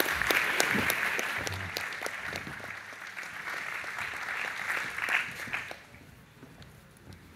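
Audience applauding. The clapping is loudest at the start, then thins and dies away about six seconds in.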